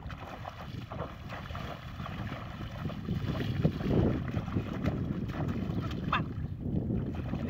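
Shallow muddy paddy water splashing and sloshing as hands and a bamboo basket churn through it, uneven and swelling about halfway through.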